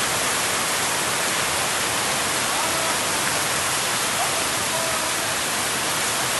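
Heavy rain falling on a market street's canvas shop awnings, with rainwater pouring off the awning edges. The rush is steady and even throughout.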